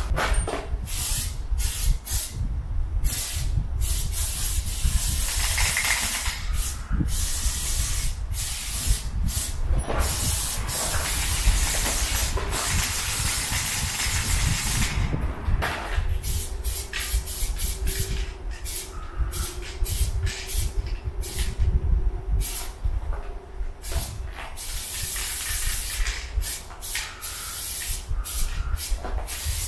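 Aerosol spray paint can hissing in repeated bursts, many short and several held for two or three seconds, as paint is sprayed onto a wall. A steady low rumble runs underneath.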